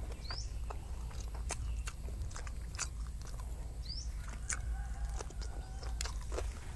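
Close-miked chewing and crunching of food in the mouth, with sharp crunching clicks at irregular intervals. A short rising chirp sounds twice in the background.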